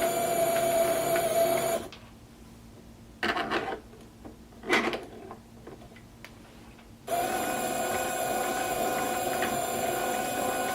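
3D-printed plastic planetary gearset running, a steady mechanical whir with a whine of meshing gears. It stops about two seconds in, two short brief sounds follow, and it starts running again about seven seconds in.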